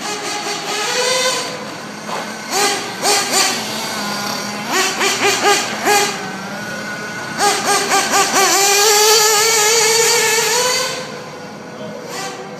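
Radio-controlled cars' motors revving in a string of short blips, then a longer run from about seven seconds in that holds and climbs in pitch before dropping away near the end.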